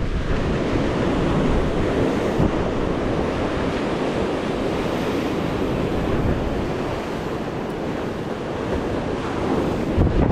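Sea waves washing on the shore, a steady rushing surf, with wind buffeting the microphone.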